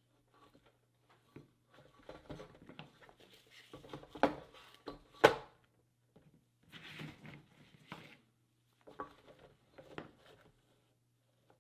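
Hose and fittings being handled and set on a catch can: scattered rustles, clicks and light knocks, with one sharp knock about five seconds in, over a faint steady low hum.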